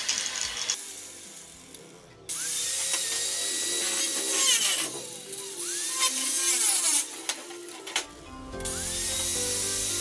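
Angle grinder with a thin cutting disc cutting through the side wall of a perforated metal cable tray: a loud, hissing grind starts about two seconds in, drops away briefly around eight seconds, then starts again. Background music plays underneath.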